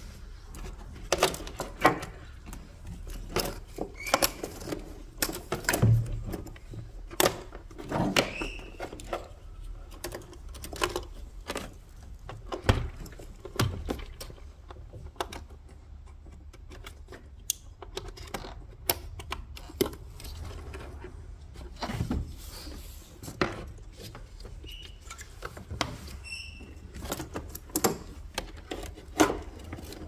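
Irregular plastic clicks and knocks from handling a Mercedes W204 front SAM control unit and its wiring-harness connectors as they are worked loose and fitted.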